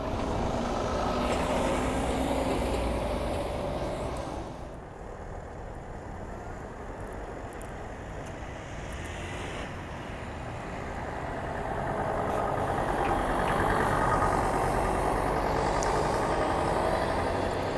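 City buses driving past: engine and tyre noise swells as one bus passes close, fades about five seconds in, then rises again as another bus approaches and pulls through.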